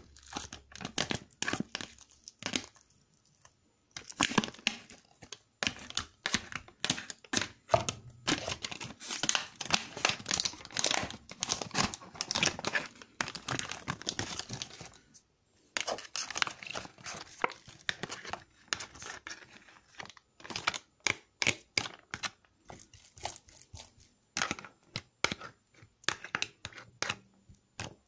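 A metal utensil scraping and tapping wet cat food out of its container into a plastic bowl, in quick irregular scrapes and clinks with two short pauses.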